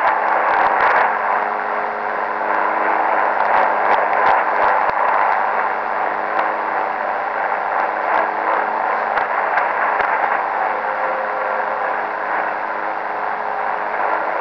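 Shortwave receiver on 7377 kHz picking up the strange noise that comes before the numbers station: a Chinese-language programme's music garbled by upper-sideband (USB) reception into a steady hissing rumble. A few faint held tones and scattered crackles run through it.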